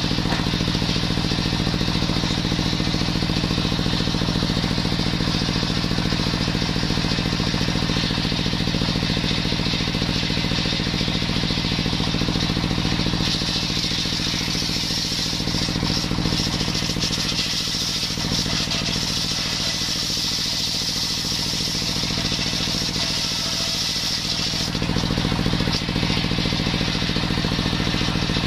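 Stationary engine running steadily, driving a belt-driven table circular saw that rips a coconut-wood log lengthwise. The high hiss of the blade cutting wood grows stronger from about halfway through and eases off shortly before the end.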